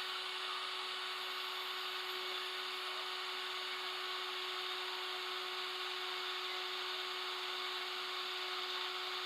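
Electric drill running steadily against stainless steel, an even whir with a constant whine; the bit is making slow progress in the hard stainless.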